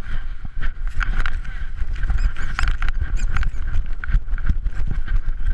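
Rapid knocking, scraping and rustling of a GoPro camera housing strapped to a small dog's harness, jolted with each stride while the dog's fur brushes over the case. Many quick knocks a second over a heavy, uneven low thumping.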